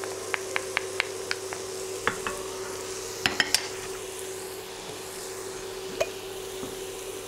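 Chopped onion sizzling in a frying pan over a steady hum. A metal garlic press clicks lightly several times as the garlic is scraped off it with a wooden spoon. Then three quick clatters come as the press is laid on a ceramic plate, and one knock follows near the end.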